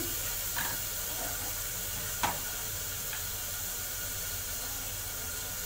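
Onion-tomato masala frying in ghee in a pan, a steady sizzle, with a light clink about two seconds in.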